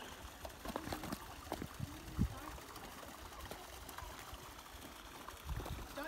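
Water trickling and running over rocks, a steady faint wash, with a few small clicks and faint distant voices about two seconds in.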